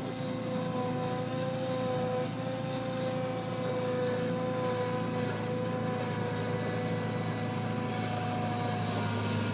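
Bobcat 743 skid steer loader running on over-the-tire tracks: a steady engine drone with a steady high whine over it.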